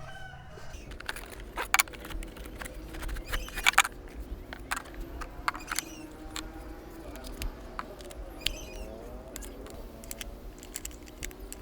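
Plastic clicks and taps from a toy MP5 gun being handled, scattered irregularly, a few louder ones about two and four seconds in.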